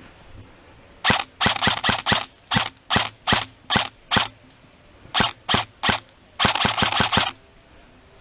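Airsoft gun firing: a string of single shots, some quick and some spaced out, then a short rapid burst near the end.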